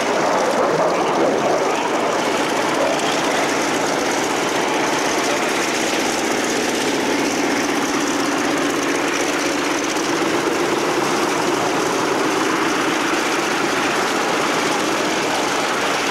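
Pratt & Whitney R-2800 eighteen-cylinder radial engine of an FG-1D Corsair running steadily at low power while the aircraft taxis.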